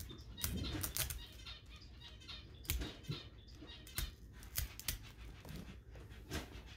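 Rustling and crinkling of artificial silk flowers and a glittery wire garland being handled and worked into a centerpiece, with irregular sharp clicks and taps.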